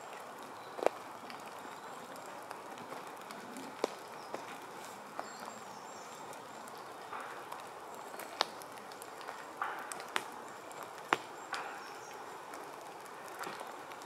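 Footsteps pushing through forest undergrowth off the path: irregular sharp snaps, like twigs breaking underfoot, every second or two, with softer rustles of leaves and brush between them, over a steady background hiss.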